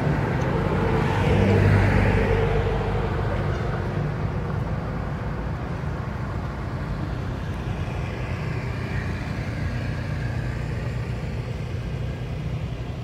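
Steady low hum of a motor vehicle engine running, growing louder for a moment about two seconds in, then settling.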